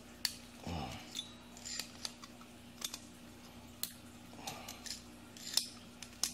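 Hex driver working the 2.5 mm socket head cap screws out of the cylinder head of a Kyosho KE25 nitro engine: scattered faint metallic clicks and ticks of the tool, screws and engine being handled, over a faint steady hum.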